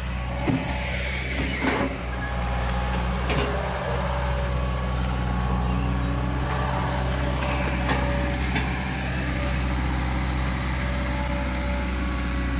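Hitachi EX200 long-arm excavator's diesel engine running steadily. A few short rustling knocks come in the first few seconds.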